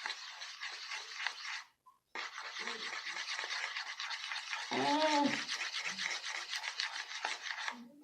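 Fast, continuous scraping and rubbing of a shampoo slime mixture being stirred in a container. It stops briefly about two seconds in, then resumes. A short voiced hum is heard about five seconds in.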